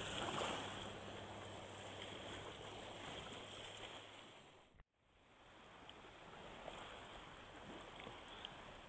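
Faint water sloshing and lapping around a wading angler, with wind, cutting out briefly about halfway through.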